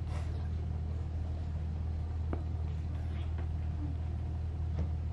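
Steady low hum, with a few faint soft ticks.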